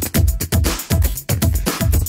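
Background electronic dance music with a steady, fast kick-drum beat.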